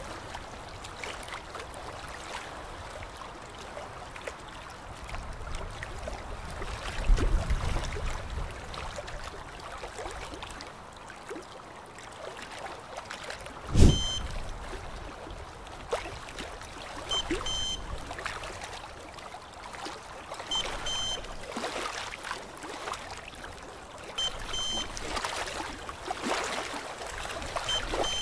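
Steady hiss with a gurgling, crackling texture, typical of a dental suction line. About halfway a sharp thump, then a dental LED curing light beeps briefly about every three and a half seconds, five times, marking its curing intervals.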